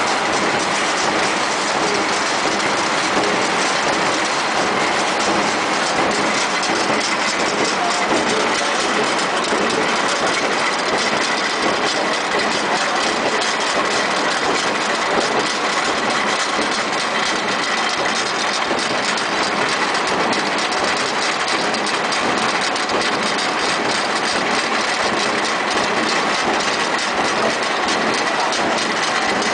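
Roll-to-sheet paper cutting machine for duplex board running steadily: a constant mechanical din with a faint steady whine.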